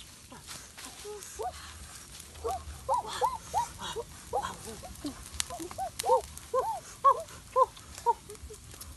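A run of short yelping animal calls, each rising and falling in pitch, coming two or three a second, with a few sharp crackles from the wood fire.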